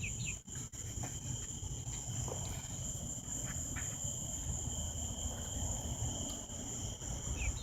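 Steady chorus of insects such as crickets, two unbroken high trilling tones, over a low rumble, with a few brief high chirps scattered through.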